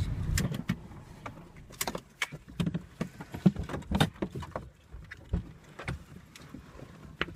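Scattered clicks and knocks inside a car cabin as the occupants unbuckle and climb out: seatbelt latches, door handles and seats shifting.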